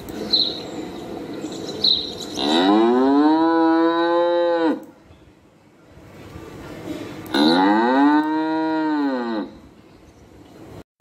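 Cattle mooing: two long moos a few seconds apart, each about two seconds, rising and then falling in pitch. A couple of short sharp sounds come in the first two seconds.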